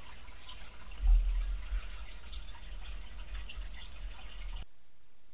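Aquarium water trickling and dripping, with scattered small ticks. A low thump comes about a second in, and the sound cuts off suddenly near the end.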